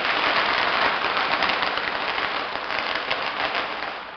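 Fireworks crackling in a dense, rapid spray of small pops and hiss, fading near the end.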